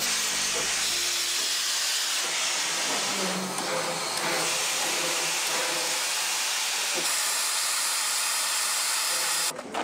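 Steady, loud hiss of steam venting from a narrow-gauge steam locomotive standing at a station. The hiss cuts off near the end.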